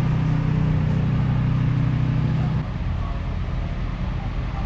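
An engine running steadily with a low, even hum that cuts off abruptly a little over halfway through, leaving a quieter steady background rumble.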